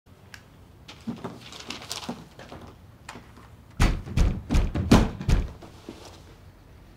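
A few soft knocks and rustling, then a run of about six heavy thuds in quick succession over a second and a half, in a small room.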